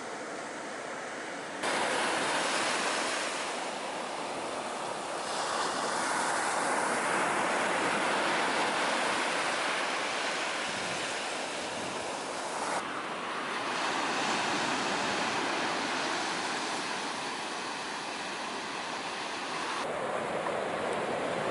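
Ocean surf breaking and washing on the shore, a dense rushing noise that swells and eases, with a sudden jump in loudness a couple of seconds in and abrupt shifts twice later on.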